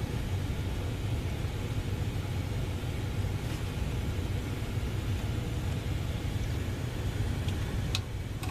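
Steady low rumble of background noise, with one sharp click about eight seconds in.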